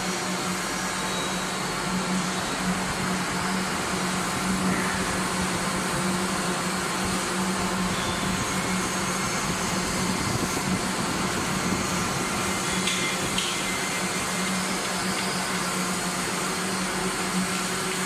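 Apple-chip processing line machinery running steadily: an even mechanical whir with a constant low hum.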